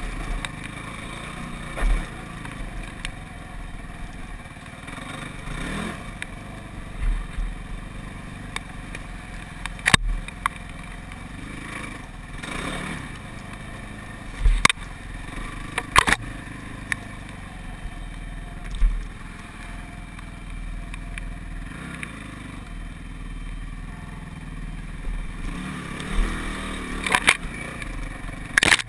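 An ATV engine running as it drives over a rough trail. Several sharp knocks and rattles from the machine jolting over bumps break through it.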